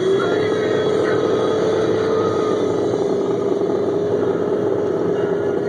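Sanding truck running steadily under way, its engine noise carrying an even whine.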